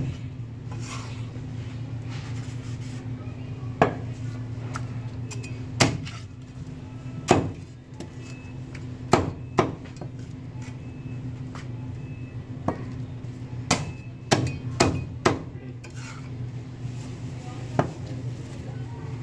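Chinese cleaver chopping through roast duck into a thick wooden chopping block: about ten sharp chops, irregularly spaced, with a quick run of several about two-thirds of the way through, over a steady low hum.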